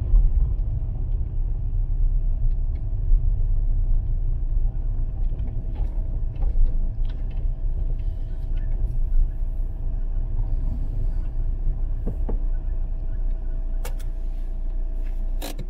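Fiat Panda 4x4 driving, a steady low rumble of engine and tyres, with a faint steady whine above it. A few sharp clicks come near the end.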